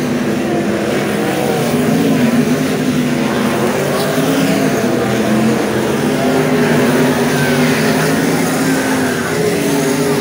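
A pack of 410 sprint cars' V8 engines racing on a dirt oval, several engines at once, their pitch rising and falling as they go through the turns.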